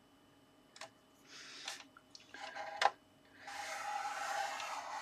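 White card stock being handled and scored on a scoreboard: a light tap, short scrapes and a sharp click, then a steady scrape of the scoring tool drawn along the groove starting about three and a half seconds in.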